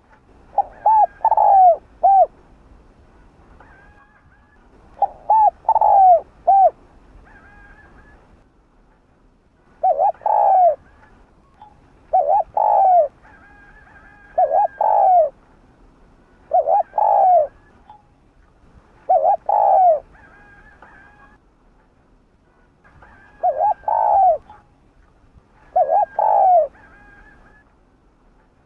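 Spotted dove cooing: short phrases of two or three coos, repeated about every two to three seconds, with a longer pause about two-thirds of the way through.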